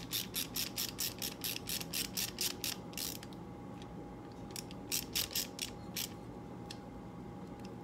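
Rapid ratcheting clicks, evenly spaced at about five a second, from hand work on the motorcycle's ignition wiring. They stop about three seconds in, and a few more clicks follow around five seconds in.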